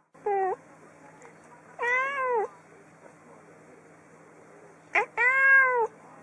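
Calico cat meowing three times: one short meow near the start, then two longer meows about two and five seconds in.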